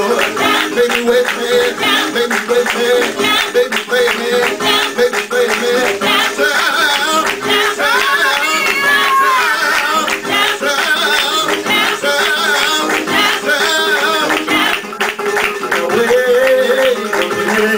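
Lively music with guitar and a fast beat of sharp percussive hits, with a voice singing in places.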